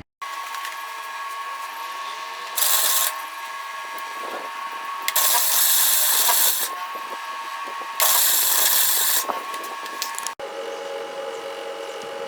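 Welding arc crackling and hissing in three bursts, short, then longer, then about a second, over a steady hum.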